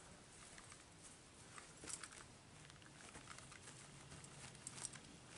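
Near silence, broken by faint scattered ticks and rustles of footsteps on grass.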